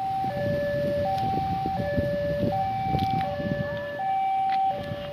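Railway level-crossing warning alarm sounding a steady electronic two-tone, alternating a higher and a lower pitch about every 0.8 seconds, the signal that a train is approaching. A low rumbling noise runs underneath.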